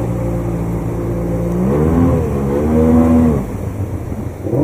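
Outboard motor on an inflatable boat running steadily, then revved up twice about halfway through before its sound drops away sharply, with one short rev near the end. Rushing rapids hiss underneath.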